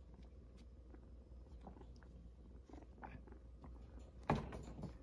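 A kitten playing with a wand toy in a wire playpen: faint scattered taps and scuffles of paws and toy, with one louder thump about four seconds in.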